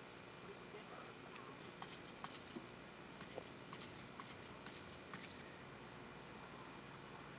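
Crickets trilling in one steady high-pitched drone, with a few faint small clicks.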